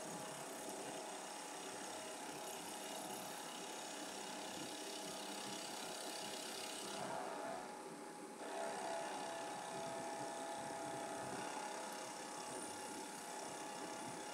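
TRAK DPM bed mill face-milling an aluminum block with a 1-inch cutter: spindle running and the cutter cutting steadily across the top of the part. About seven seconds in, the cutting sound drops away briefly as the cutter reaches the end of a pass and steps over. It then resumes on the return pass with a clearer ringing tone.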